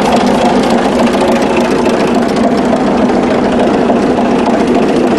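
Mirrlees U-type diesel engine running steadily and loudly on its first run, with a fast, even mechanical ticking from its valve gear over the engine note.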